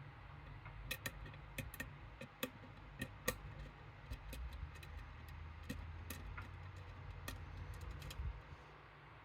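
Small metal clicks and taps of tools working in a Medeco M3 lock cylinder, coming irregularly and thickest in the middle, over a low handling rumble.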